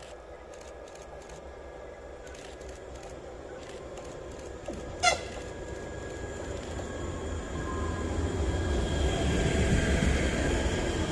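Škoda EJ575 electric multiple unit approaching, its running noise and steady electric whine growing louder. A brief, sharp squeak comes about five seconds in.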